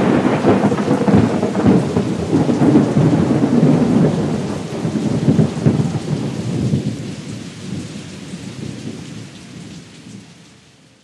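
A loud, rumbling, thunder-like sound effect for an erupting volcano. It is loudest at first, then slowly fades away over about ten seconds.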